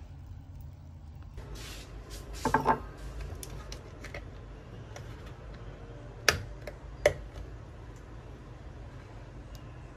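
Kitchen handling sounds: a milk carton and a glass tumbler being set on a wooden counter. There is a quick cluster of light knocks and rattles about two and a half seconds in, then two sharp knocks about a second apart around six and seven seconds, over a steady low hum.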